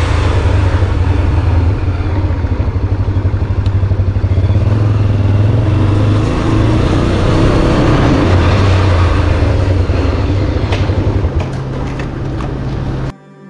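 Motor vehicle running close by, a steady low rumble with a noisy wash over it, easing off near the end and cutting off abruptly just before the end.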